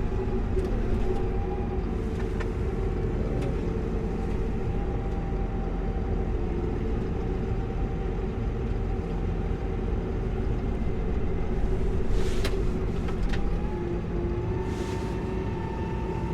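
Farm tractor engine running steadily while its loader works to lift a fallen tree, its pitch shifting and rising slightly near the end. A few sharp cracks or knocks sound about twelve seconds in.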